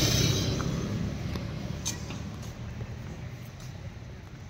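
A motor vehicle's engine running and fading away, loudest at first and dying down over a few seconds, with a few light clicks about two seconds in.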